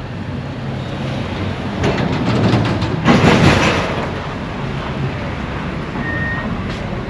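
A motor vehicle passing close by on the street: it grows louder over the first few seconds, peaks about three seconds in, then fades over a steady low engine hum.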